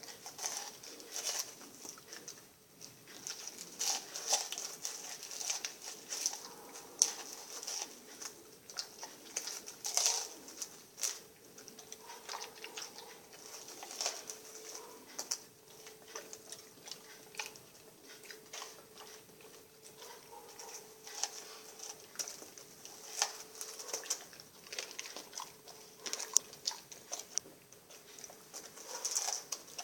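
A Rottweiler chewing and biting sardines, with irregular wet clicks, smacks and crunches of jaws and teeth and a louder bite every second or so.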